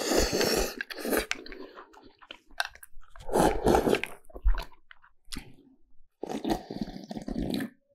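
Noisy eating close to the microphone: a person slurping thick beef noodles and chewing. Near the end, a longer slurp as broth is drunk straight from the lifted bowl.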